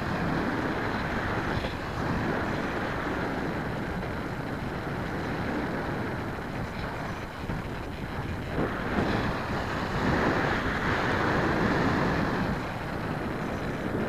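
Airflow rushing over the microphone of a camera mounted on a model airplane in flight: a steady noisy rush that swells louder for a few seconds past the middle, then eases.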